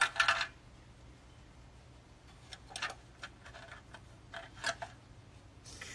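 Light clicks and taps: a sharp cluster at the start, then two softer clusters in the middle and later, over a faint steady low hum.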